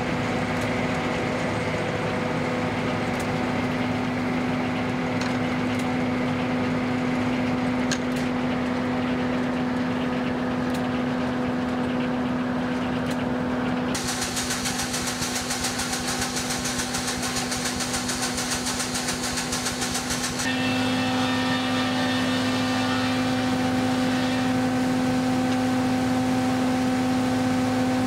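A 1920s circular sawmill with a 56-inch insert-tooth blade running, giving a steady mechanical hum at a constant pitch. The mix of the sound changes abruptly about 14 seconds in and again about 20 seconds in.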